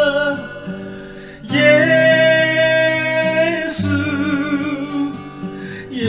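Instrumental break of a worship song: sustained chords, with a new chord struck about a second and a half in and another about four seconds in.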